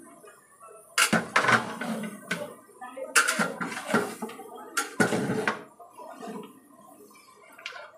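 A long-handled metal ladle scrapes and knocks against the inside of a large metal cooking pot as a thick mass of mutton is stirred and browned. The strokes come irregularly, about a second apart, and grow quieter for a couple of seconds near the end.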